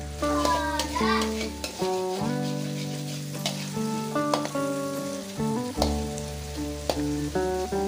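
Egg and shrimp sizzling in hot oil in a wok while a spatula stirs and scrambles them, with repeated sharp scrapes and taps of the spatula against the pan. Background music with steady notes and a bass line plays throughout.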